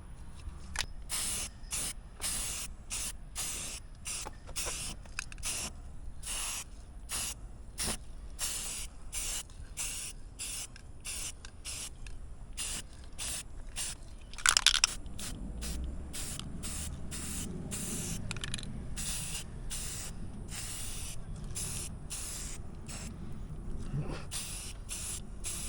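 Aerosol can of rust reformer spraying in many short hissing bursts, about two a second, with one longer burst a little past halfway.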